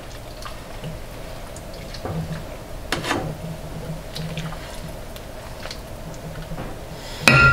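Soup being ladled from a pot into a ceramic bowl: liquid dripping and splashing, with light knocks of the ladle, over a steady low hum. A louder clatter of the ladle against the dishes comes at the very end.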